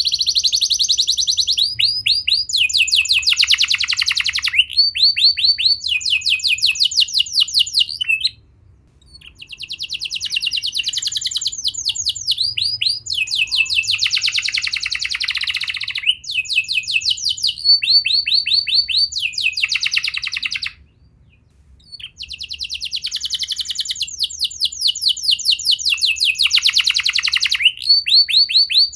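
Domestic canary singing long phrases of rapid, repeated trills, with two brief pauses between phrases.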